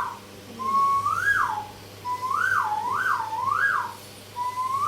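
Nose whistle blown through the nose and shaped by the open mouth, imitating a bird call. A whistled note slides up and drops, then three quick rise-and-fall warbles follow, and another rising note comes near the end.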